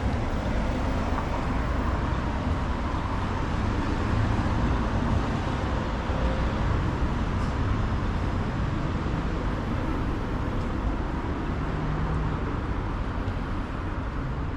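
Steady road traffic noise, with motor vehicles running past.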